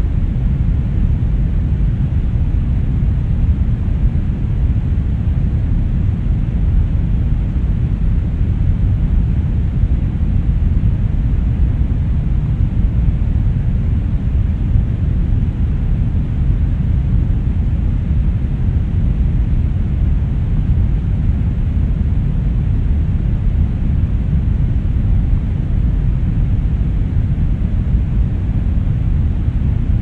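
Brown noise: a steady, deep hiss that is heaviest in the bass and thins out toward the highs, with no change in level or character.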